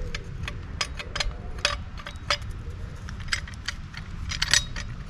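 Light irregular metallic clicks and clinks as a lambda sensor is screwed by hand into a stainless steel exhaust downpipe, over a steady low rumble.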